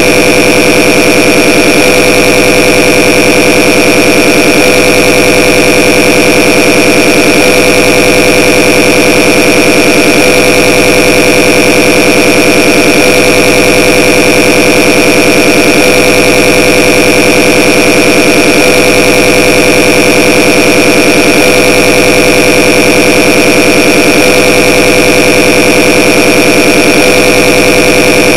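A very loud, unchanging drone made to annoy, several steady tones sounding together, the strongest a high whine over a lower hum.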